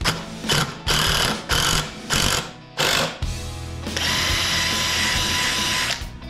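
Power drill driving a screw into wood: several short trigger bursts, then one steady run of about two seconds near the end.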